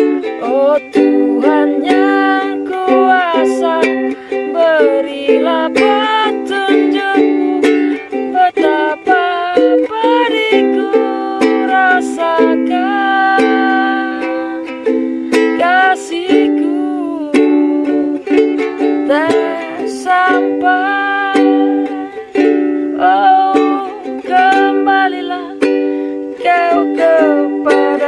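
A man singing an Indonesian love song in Indonesian, accompanying himself on a strummed ukulele.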